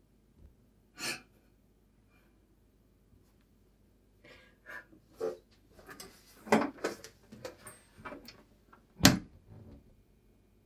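A woman's breathy sighs and gasps: a lone breath about a second in, then a run of short, uneven breaths from about four seconds on, the loudest just after nine seconds.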